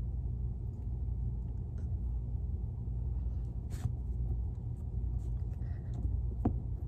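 A steady low rumble with a few faint taps, as hands press and flatten a coiled clay base on a wooden tabletop.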